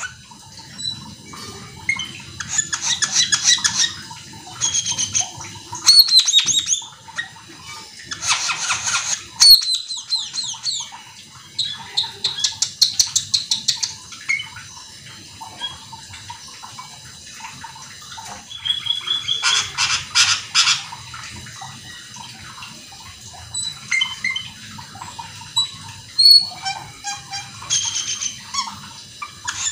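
Asian glossy starling (cucak keling) singing in repeated phrases of rapid, squeaky, chattering notes, each phrase a second or two long with short pauses between.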